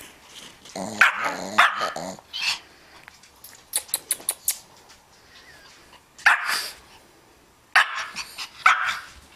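Small long-haired dog, a Pekingese, barking and growling in playful bursts as it rolls and wriggles about, with a run of short sharp yips or clicks in the middle and quiet gaps between.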